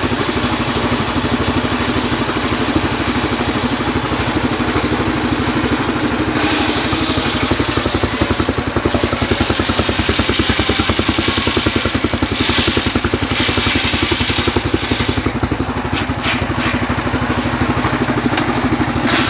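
Homemade engine-driven circular saw bench with a steady, pulsing engine note throughout. From about six seconds in, the blade rips lengthwise through a rain tree (trembesi) log, adding a loud hiss that rises and falls as the cut goes on.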